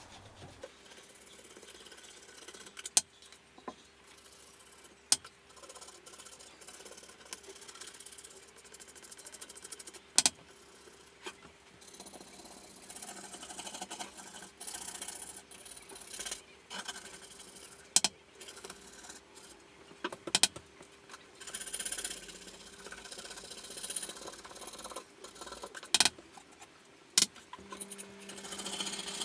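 Nylon scraper scraping softened varnish and stripper off a wooden rifle stock: scratchy strokes that come thicker in the second half, with a few sharp clicks as the scraper knocks against the stock. A faint steady hum runs underneath.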